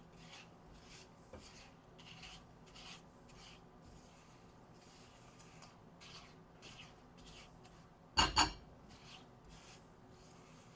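A pan being stirred as jaggery melts into ginger juice: faint, repeated scraping strokes against the pan, with a sharp double knock about eight seconds in.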